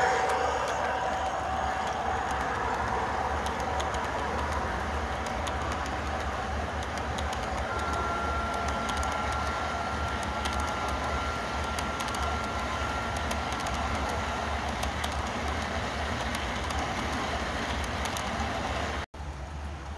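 Garden-scale model double-stack freight cars rolling across a track bridge: a steady rumble of wheels on rail, with many small irregular clicks. A faint steady whine sounds for several seconds in the middle, and the sound cuts off abruptly near the end.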